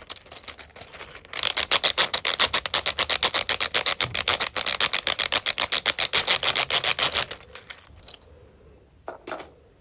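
Second-loudest clicking wheel on a small 3D-printed plastic fidget toy being spun: a fast, even run of clicks, about ten a second, for some six seconds, then a couple of faint clicks near the end.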